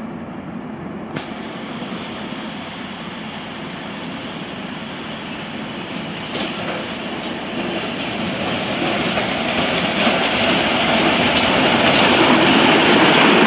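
Darjeeling Himalayan Railway narrow-gauge toy train, hauled by a diesel locomotive, approaching and passing close by: a steady rumble of engine and wheels that grows louder throughout. A few sharp clicks stand out over it.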